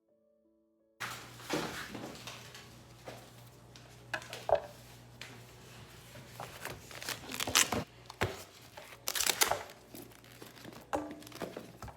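Plastic packaging crinkling and rustling as it is handled, with a few sharp clicks and taps, over a low steady hum. It starts suddenly about a second in.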